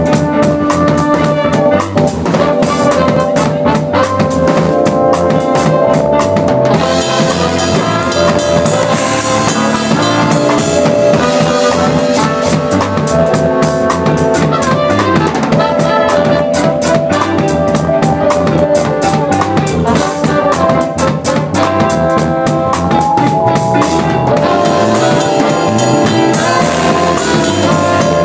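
Live band playing an instrumental stretch, with the drum kit loud and close: steady drum and cymbal strokes over held, pitched instrument lines.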